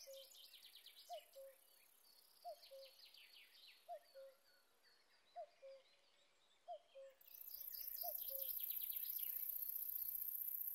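A steady, high-pitched stridulation hiss from a Southern Barbed-wire Bush-cricket (Onconotus servillei) starts abruptly about seven seconds in. Throughout, a bird repeats a low two-note call about every second and a half, the first note higher and falling and the second lower and shorter, with faint high chirps above it.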